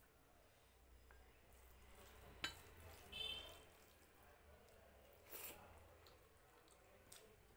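Faint wet squishing of rice and dal being mixed by hand on a plate, with a sharp click about two and a half seconds in and a few short wet smacks after it.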